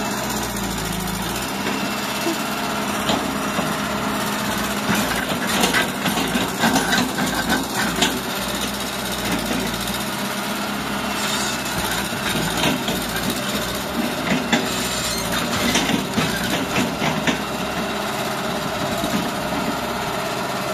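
Hitachi EX120 excavator's diesel engine running steadily, with many sharp knocks and clanks from about five seconds in.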